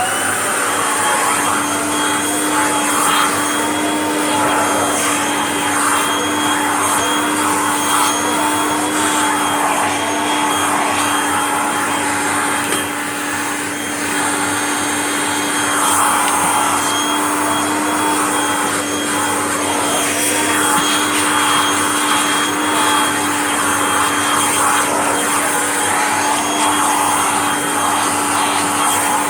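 Kirby vacuum cleaner running steadily with its hose attachment, dusting off another vacuum cleaner. It makes a continuous whine with a steady hum under it, wavering a little as the hose is moved about.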